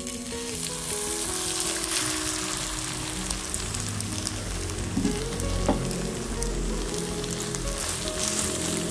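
Instant noodles coated in beaten egg sizzling and crackling in hot cooking oil in a non-stick frying pan, the sizzle starting as they are poured in. Near the end a slotted spatula stirs and spreads them in the pan.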